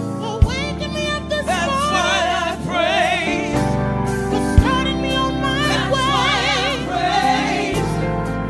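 Live gospel music: a female singer holds long notes with heavy vibrato over sustained keyboard chords and bass. Two sharp drum hits come about half a second in and again about four and a half seconds in.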